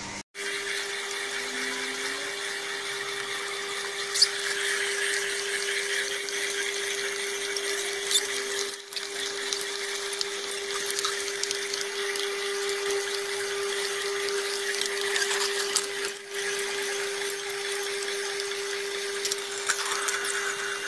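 Vertical slow juicer running steadily while it presses kale and other produce. Its motor holds one steady hum, with a few sharp clicks from the produce being crushed.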